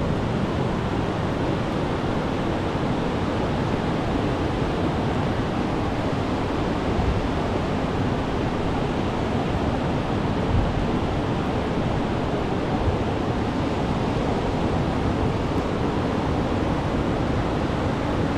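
Sea surf breaking and washing on a sandy beach, a steady unbroken rush of waves.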